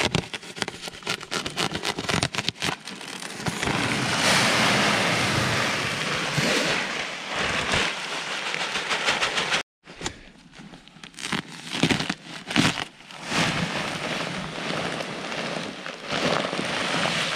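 A bag of pelletized lime being cut open and crinkled, with crackling clicks, then the pellets pouring out into a plastic spreader hopper as a steady hiss. This stops abruptly just under ten seconds in, and is followed by more crinkling of the bag and more pouring.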